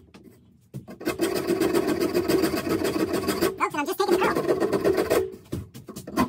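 Hand file scraping a wooden axe handle in quick back-and-forth strokes, starting about a second in, with a brief pause near the end. The strokes take down the burnished high spots that the axe eye left on the handle, to fit it snugly into the head.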